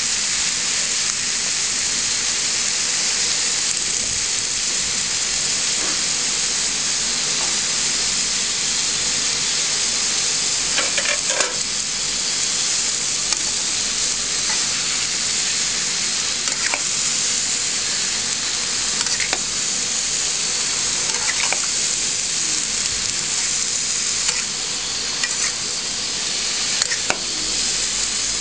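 Chopped spinach and potatoes sizzling steadily in a metal pan as the spinach gives off its own water. From about eleven seconds in there are a few short scrapes and clicks of a steel spatula stirring against the pan.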